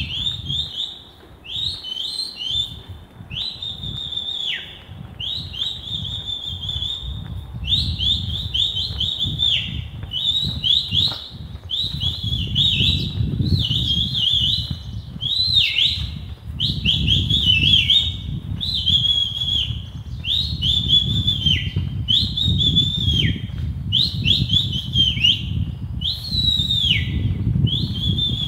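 Goldfinch calling over and over in short high whistled phrases, about one a second, many ending in a falling glide. Low scuffing footsteps on cobblestones run underneath and grow louder partway through.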